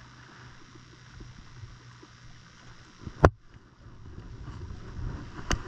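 Water lapping against a wooden pier with a low rumble of wind. Two sharp knocks cut through it: a loud one about three seconds in and a lighter one near the end.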